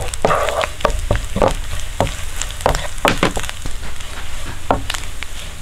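Grated coconut and curry leaves frying in coconut oil in a non-stick pan: a steady sizzle, with irregular scrapes and taps from a wooden spatula stirring and turning the coconut as it roasts toward golden brown.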